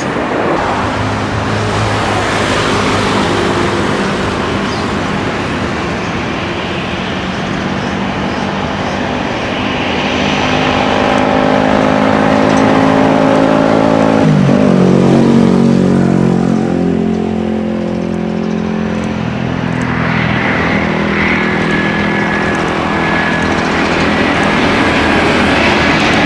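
Jet airliner engines at high power: a Boeing 747 freighter's four turbofans running at takeoff thrust, their tones dropping sharply in pitch about halfway through. Then a twin-engine Airbus A350 on approach, with a steady high engine whine over the noise.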